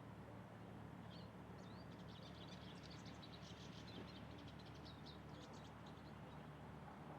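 A small songbird singing faintly: a quick run of high chirps and twittering notes that starts about a second in and stops shortly after halfway, over a steady low hum.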